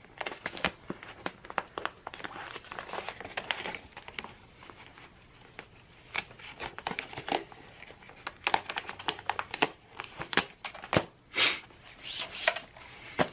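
Carbon fiber vinyl wrap film crinkling and crackling in irregular short bursts as it is handled, pulled and stretched over the panel's edges.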